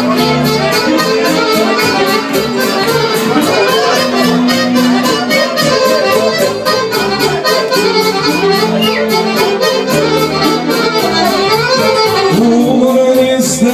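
Live Serbian folk music: an accordion and a violin play an instrumental passage over a fast, steady beat. A man's voice comes in near the end.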